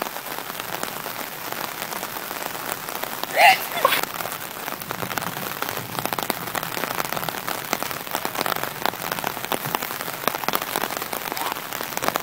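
Steady rain pattering on a surface, with one short, loud vocal cry about three and a half seconds in.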